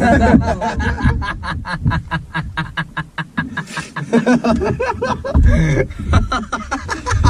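Men laughing together inside a car, a fast run of short, breathy giggles.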